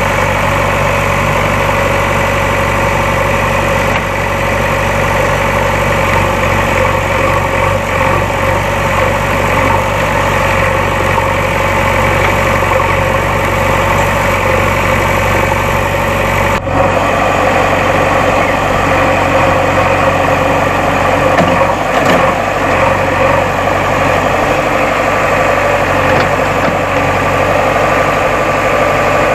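JCB backhoe loader's diesel engine running steadily, with a momentary break about halfway through.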